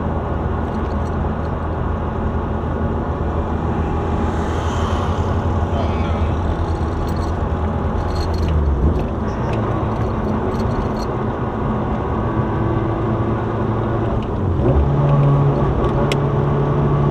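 In-cabin sound of a turbocharged 2015 Honda Civic Si's four-cylinder engine and road noise while driving, a steady low drone whose pitch steps up about halfway through and again near the end.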